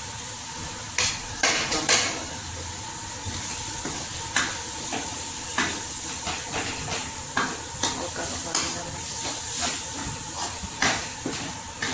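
Masala sizzling as it fries in a metal kadhai, stirred with a steel spatula. Irregular scrapes and clinks of the spatula against the pan sound over a steady frying hiss.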